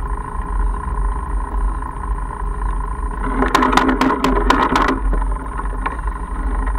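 Mongoose Argus fat bike rolling along a gravel road: a steady low rumble of tyres and wind over a faint constant whine. About halfway through, a second or two of irregular rattling clicks as the bike jolts over rough ground.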